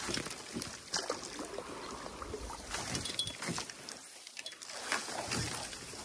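Wild rice being knocked in a canoe: wooden knocker sticks swish and tap through the dry rice stalks as they are bent over the hull, making a run of irregular rustles and light clicks.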